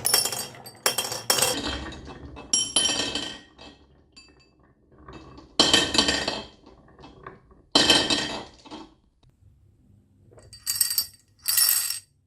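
Marbles clinking against each other and the marble run in a series of sharp strikes. Each strike rings briefly at the same high tones, with a short rolling rumble after the louder ones at about 6 and 8 seconds.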